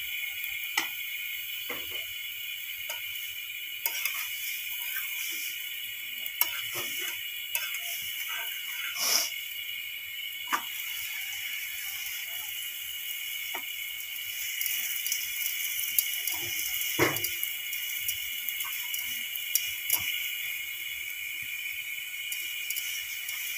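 Ghee-coated paratha frying on a hot iron tawa, with a steady sizzling hiss and scattered clicks and scrapes of a spatula against the griddle. A steady high-pitched hum runs underneath.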